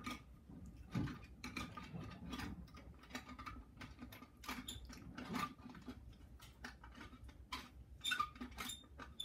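Irregular small clicks, taps and scrapes of hands working the metal cap and top screw back onto a gumball machine's glass globe.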